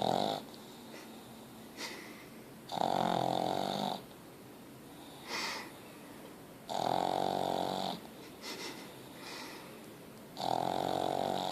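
Pug snoring in its sleep: a snore about a second long every three to four seconds, with fainter short breaths in between. The first snore is trailing off right at the start.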